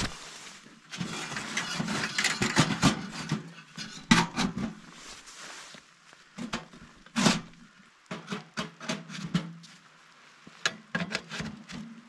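Metal clattering and knocking as a sheet-metal camp wood stove and its stovepipe are handled and fitted together: a dense rattle in the first few seconds, then separate sharp knocks.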